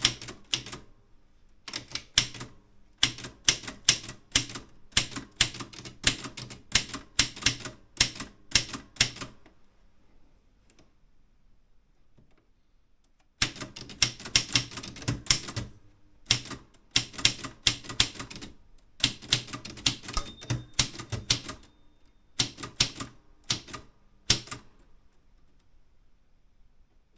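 Typewriter keys being struck in quick runs of sharp clacks, with a pause of a few seconds between two runs of typing. A brief high ringing tone sounds partway through the second run.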